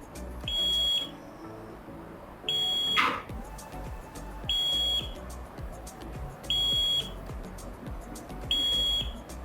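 Arduino fire and smoke alarm's buzzer sounding the alarm: five high beeps, each just under a second long, one every two seconds, the sign that a flame or gas leak has been detected. A short sharp noise cuts in about three seconds in, over faint background music.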